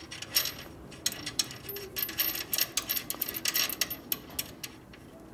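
Rapid, irregular metallic clicking and ticking as a nut is spun on by hand onto the motorcycle's rear shock-absorber mounting stud. The clicks run for about four seconds, thickest in the middle, and stop shortly before the end.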